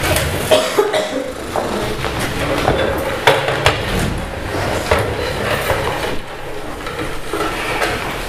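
Scattered knocks, clicks and light clatter of musicians settling in: a chair taken, music stands and wind instruments handled, with no playing yet.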